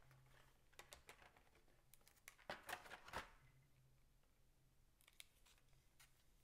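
Clear plastic blister trays clicking and crackling faintly as they are handled and pulled apart, with a cluster of sharp clicks about two to three seconds in and a few more around five seconds.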